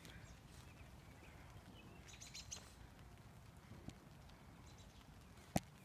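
Near silence outdoors, with a few faint bird chirps about two seconds in and a single sharp click near the end.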